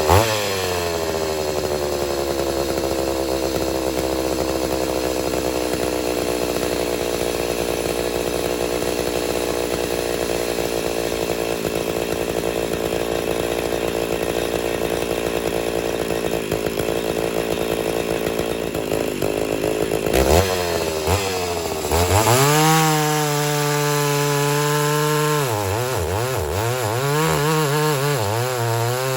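Ported 82cc Homelite Super XL-925 two-stroke chainsaw cutting red oak with its 28-inch bar buried. The engine note drops as it takes the cut and holds a steady, lower pitch under load. About twenty seconds in, the revs climb sharply as the load comes off, and the saw runs at high revs with the pitch wavering near the end.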